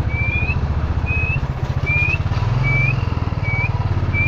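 Motorcycle engine running steadily at low speed, with short rising whistles repeated about every 0.7 seconds, seven in all.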